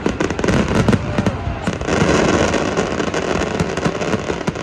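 Fireworks going off in quick succession: a dense run of crackles and pops over a continuous rumble, thickest in the middle.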